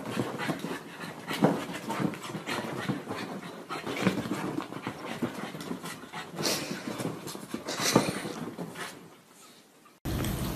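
A small dog panting hard as it dashes about, with a few sharp knocks, the loudest about a second and a half in and again near the end. The panting fades off shortly before the end.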